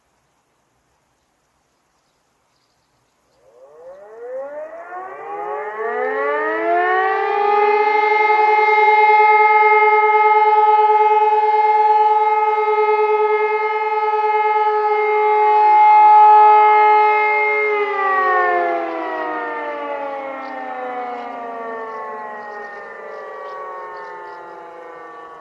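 Civil defence siren sounding during a public siren test. It starts a few seconds in, winding up with a rising pitch, holds one steady tone for about ten seconds, then slides down in pitch and fades slowly near the end.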